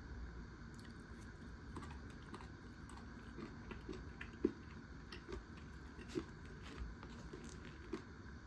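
Soft, irregular clicks and taps from handling and eating a convenience-store bento, with the sharpest tap about four and a half seconds in.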